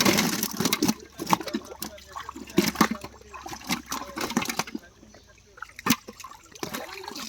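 Pond water splashing and slapping in irregular bursts as netted fish thrash in shallow water.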